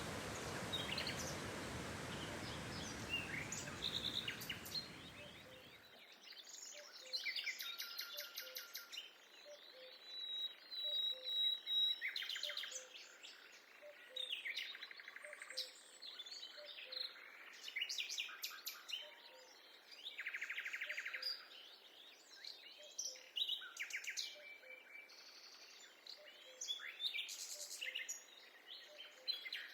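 Several forest birds singing and calling: chirps, short trills and whistled notes from more than one bird. A steady rushing noise lies under the birdsong at first and cuts off sharply about six seconds in.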